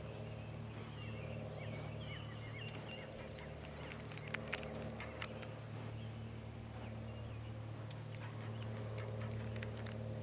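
Small birds chirping over a steady low hum, with a couple of sharp clicks about halfway through.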